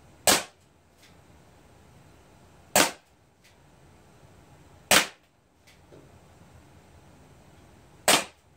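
Crosman SR357 CO2 air revolver firing pellets: four sharp pops, about two to three seconds apart, each followed by a faint click.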